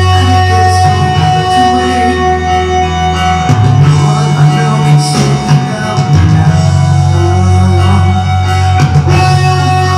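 Rock music: electric lead guitar over bass and drums, with long held notes.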